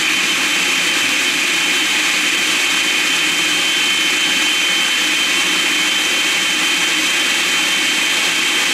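Food processor running steadily with a high-pitched motor whine, its blade grinding a wet batter of prunes and banana.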